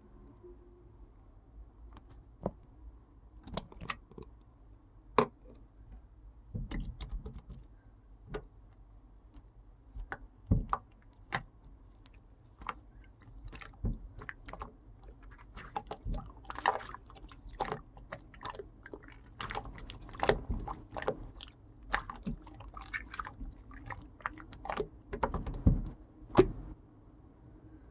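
Pink clear slime being played with by hand, giving irregular sharp clicks and pops that come thicker in the second half.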